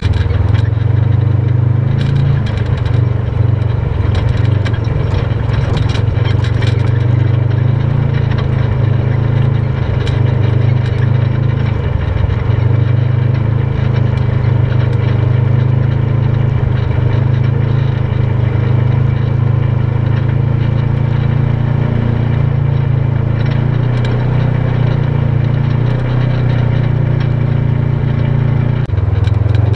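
Polaris RZR side-by-side driving on a dirt road, its engine running at a steady speed. Scattered short clicks come through over the engine.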